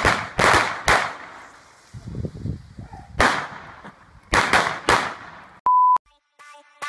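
Firecracker going off: a quick run of sharp bangs in the first second, scattered crackling, then another bang about three seconds in and three more in quick succession about a second later. Near the end, a short steady beep.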